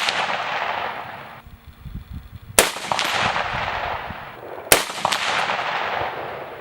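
6mm ARC AR-15 rifle firing two single shots about two seconds apart, each followed by a long rolling echo. The echo of a shot fired just before is still fading at the start.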